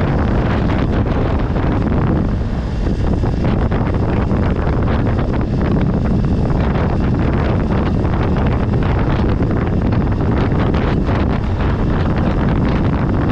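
Motorcycle riding along a dirt track at about 55 km/h: wind buffets the microphone steadily over the engine running and the tyre noise.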